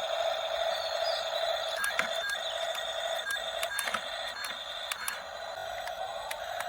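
Small electric gear motors of a remote-control construction toy running with a steady whine, with scattered sharp clicks.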